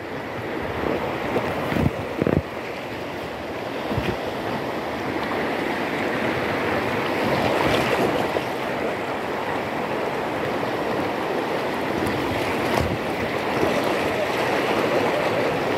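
Rushing river rapids churning and splashing close around an inner tube, a steady loud rush of water that grows a little stronger partway through. A few dull knocks in the first four seconds.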